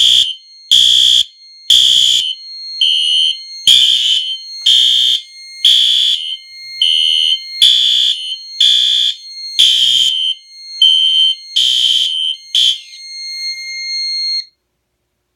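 Fire alarm system in alarm, set off by smoke in a Silent Knight SD505-APS smoke detector: loud notification appliances sound in pulses about once a second over a steady high-pitched tone. Everything cuts off suddenly near the end.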